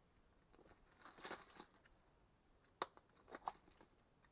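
Faint handling of a plastic organizer box of crimp wire connectors as it is opened: the parts rustle and shift about a second in, then a sharp plastic click near three seconds, followed by two lighter clicks.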